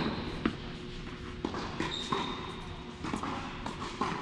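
Tennis balls bouncing on a court: a few scattered short knocks spread irregularly over a few seconds, with a couple of brief high squeaks.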